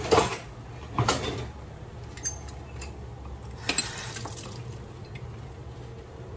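Metal kitchen utensils, a hand lime squeezer and a spoon, clinking against each other and the sink: sharp clinks at the start, about a second in, and near four seconds. Water runs from the kitchen tap.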